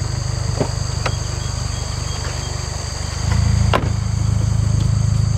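Subaru WRX's turbocharged flat-four idling through an Invidia R400 cat-back exhaust, a steady low pulsing rumble that grows louder about three seconds in.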